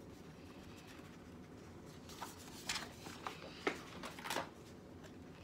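Pages of a spiral-bound coloring book being turned and handled: several short paper rustles and flaps in the second half.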